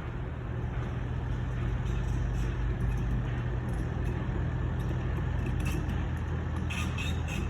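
Heavy truck's diesel engine idling steadily with a low hum, and a few short high squeaks near the end.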